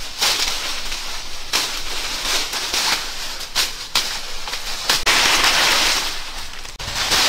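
Leafy branches rustling as they are pulled and gathered by hand in thick undergrowth, with several sharp twig snaps.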